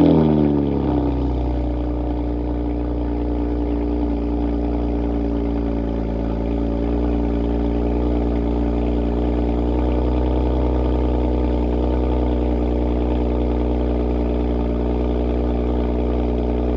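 BMW E92 335is's N54 twin-turbo straight-six fitted with catless downpipes, just started: it flares in revs at the start, then settles over a second or two into a steady idle.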